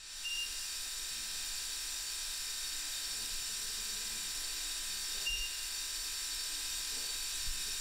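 Steady hiss of gas flowing through a gas pressure regulating station's pipework, with two brief high chirps about five seconds apart.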